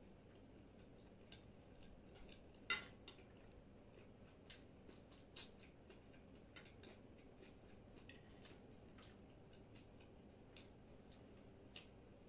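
Faint eating sounds: a fork clicking and scraping on a plate of macaroni, and soft mouth sounds of chewing. The clicks come one at a time and irregularly, the sharpest about three seconds in.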